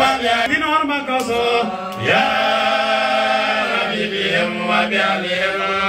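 Men chanting an Arabic Islamic devotional supplication into microphones, drawing out one long held note from about two seconds in.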